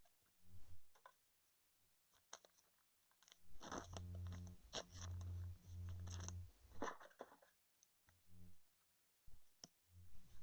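Faint crinkling and clicking as trading cards and foil card-pack wrappers are handled, busiest in the middle stretch.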